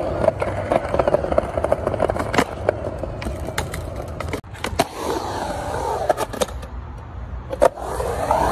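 Skateboard wheels rolling on concrete with a steady rumble, broken by several sharp clacks of the board hitting the concrete. The sound cuts off abruptly about halfway through, then the rolling starts again.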